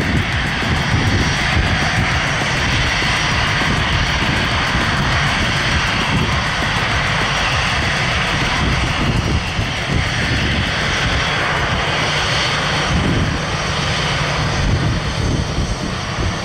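Aircraft engines running at an airfield: a steady, loud rumble with faint high steady tones above it.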